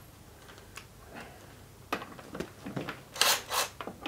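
Scattered clicks and knocks of tools and metal parts being handled in a workshop, with two short hisses about three seconds in.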